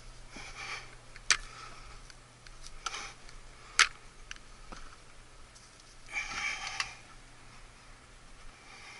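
Someone crawling through a crawlspace: short breaths or sniffs and rustling, with two sharp knocks, the second a couple of seconds after the first.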